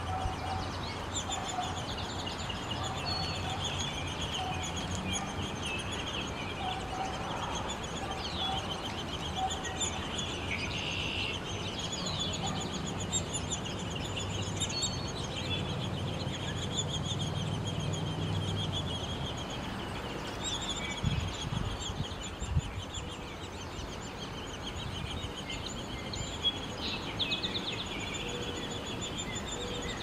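Downy woodpecker nestlings begging from inside the nest cavity while an adult feeds them: a continuous high, rapid chattering of short notes. A low steady hum runs under it for about the first two-thirds, and a few low thumps come a little after the middle.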